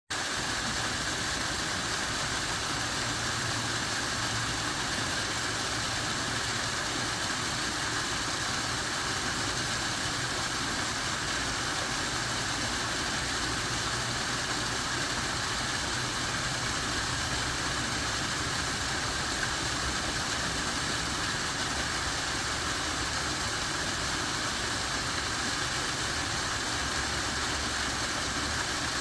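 Waterfall rushing, a steady, unchanging roar of falling water.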